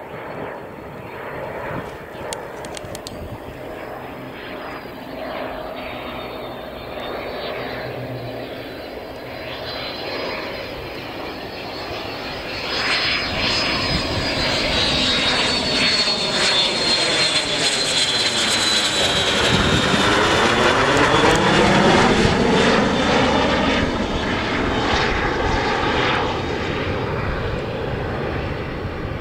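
BAC Strikemaster jet with its Viper turbojet flying low overhead with its undercarriage down. The high whine grows louder, falls in pitch as the jet passes over about two-thirds of the way through, and then fades as it flies away.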